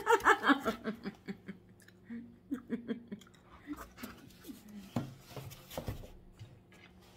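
A woman laughing briefly, then a large cardboard food box being opened and handled: light rustling and scraping, with a few dull knocks of the cardboard about five to six seconds in.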